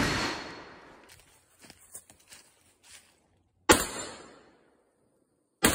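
Palmetto State Armory KS47 AK-pattern rifle (7.62×39) firing single shots: a report dying away at the start, then two more shots about two seconds apart, each with a sharp crack and a fading echo. Light rustles and clicks come in the gap between the first and second shots.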